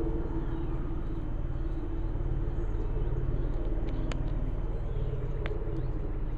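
A steady low mechanical rumble from a motor, with two brief sharp ticks about four and five and a half seconds in.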